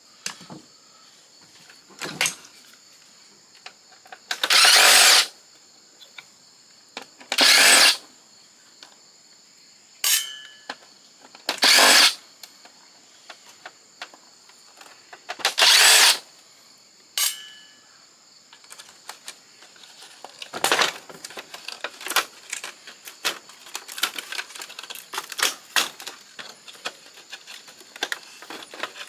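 Power drill-driver spinning screws out of an old fax machine in short runs of about a second each, four main runs with a few shorter blips between. After that, a busy patter of small clicks and knocks as metal and plastic parts are handled.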